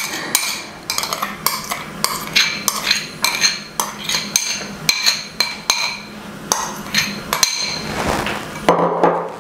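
Metal spoon clinking and scraping against a small glass bowl as its contents are tapped out, about two or three ringing clinks a second. The clinks stop about three-quarters of the way through.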